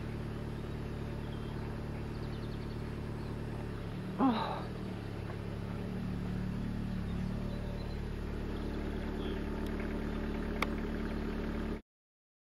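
Steady low hum of an idling vehicle engine, with one short, loud rising call about four seconds in. The sound cuts off abruptly near the end.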